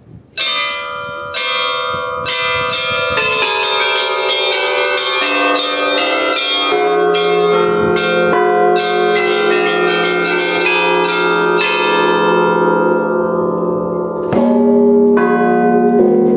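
Russian church bells ringing: rapid strikes on small high bells start suddenly just under a second in, lower bells join over the next few seconds, and near the end a deeper bell comes in with a louder round of strikes.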